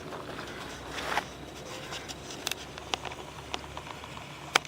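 Handling and movement noise while a person shifts position: faint rustling with a few light clicks, the sharpest one near the end.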